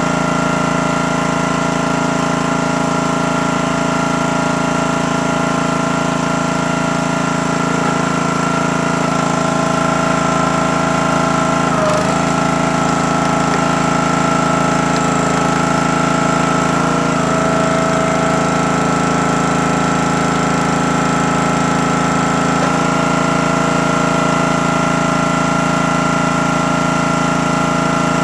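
Small gas engine of a CountyLine 28-ton log splitter running steadily, with one brief sharp click about twelve seconds in.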